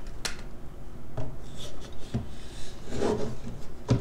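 An RTX 3080 graphics card's cooler being wiggled back and forth and pulled off its circuit board. Sharp clicks come about a second apart, with a scraping rub about three seconds in.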